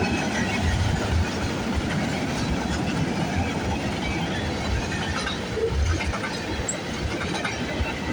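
Freight train cars rolling past at speed: a steady rumble of steel wheels on the rails, broken by irregular low thumps.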